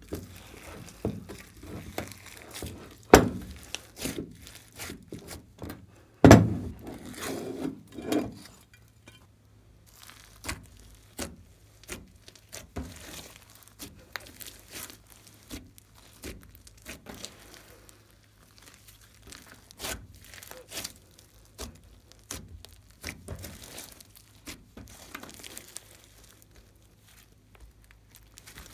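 Hands kneading, squeezing and stretching a large mass of glossy slime mixed with foam beads and sprinkles: sticky crackling and clicking. A few louder smacks come in the first eight seconds or so.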